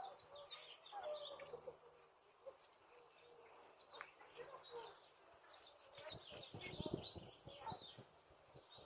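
Faint outdoor birdsong: scattered short high chirps from small birds, with some soft low rustling about six to eight seconds in.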